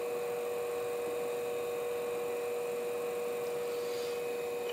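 Scimech flat hone shear-sharpening machine running, its motor and spinning disc making a steady hum.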